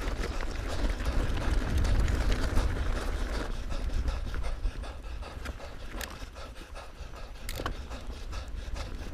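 Mountain bike rolling over a loose gravel track, tyres crunching on the stones, with wind rumbling on the camera microphone. About three and a half seconds in the crunching gives way to a dirt trail, with scattered clicks and rattles from the bike.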